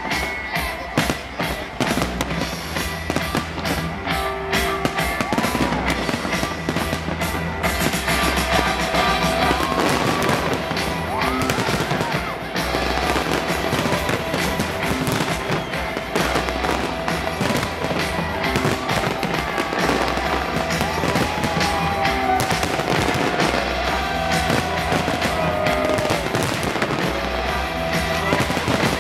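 A large fireworks display: shells bursting and crackling in rapid, overlapping bangs, densest over the first several seconds. Music with a steady bass beat plays beneath the explosions.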